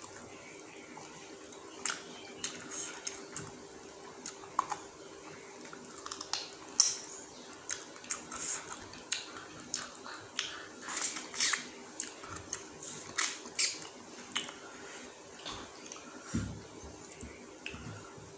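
Eating rice by hand: wet mouth sounds of chewing, lip smacks and finger licking, a run of short clicks and smacks that is busiest in the middle, over a faint steady hum.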